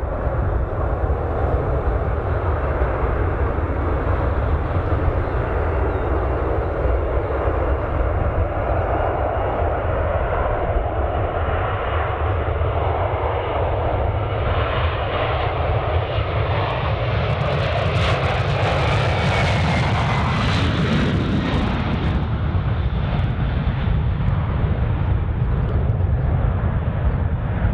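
A Boeing 767-424ER's twin General Electric CF6 turbofan engines at takeoff thrust: a steady deep roar through the takeoff roll. It turns harsher and brighter as the jet passes, with a falling whine about two-thirds of the way in, then rumbles on as the aircraft climbs away.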